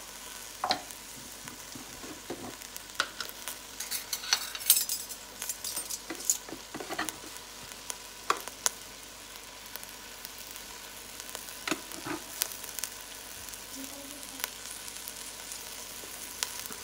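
Rice, still wet from washing, sizzling with onions in oil in a stainless steel pot, a steady faint hiss. Scattered scrapes and clicks of a spoon stirring and tapping, mostly in the first half and again around twelve seconds in.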